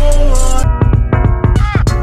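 Music with a steady beat, switching abruptly about two-thirds of a second in to a quicker run of notes with the highs cut away.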